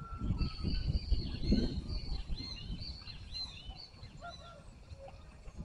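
A bird calling in a quick run of short, arched high notes that stops about four seconds in, with a steadier whistled note in the first second. Low irregular thumps run underneath.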